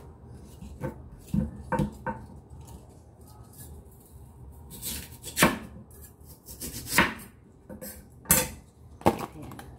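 Chinese cleaver slicing lotus root on a wooden cutting board: single knocks of the blade hitting the board at an irregular pace, a few light ones at first and louder strokes in the second half.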